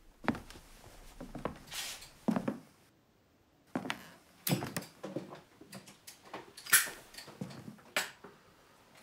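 A cigarette being lit and handled: scattered small clicks, knocks and rustles, with a short, sharp scrape of a strike about two-thirds of the way in, the loudest sound.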